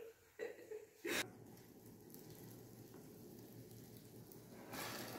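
Roti frying on the hot plate of an electric roti maker, a faint sizzle that grows louder near the end, with a sharp click about a second in.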